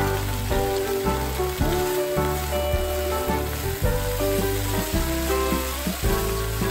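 Tuna, vegetable and gochujang stir-fry sizzling in a wok as it is stirred with a spatula, under steady background guitar music with sliding notes.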